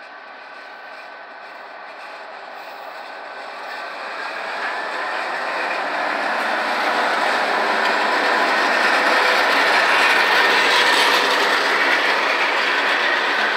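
Freight train led by EMD GP38-2 and GP40-2 diesel locomotives approaching and passing close by. The locomotives' 16-cylinder two-stroke diesel engines grow steadily louder through the first half. Then wheels of covered hopper cars roll past on the rails.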